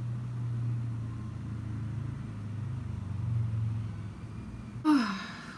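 A low, steady motor rumble that swells slightly in the middle and dies away about five seconds in, followed by a brief bit of a woman's voice near the end.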